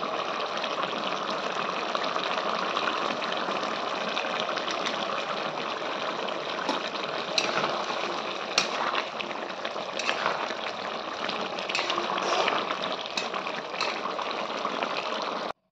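Duck and potato curry bubbling and sizzling in a metal pot, a steady hiss. A spoon stirring it clicks and scrapes against the pot several times in the second half. The sound cuts off abruptly near the end.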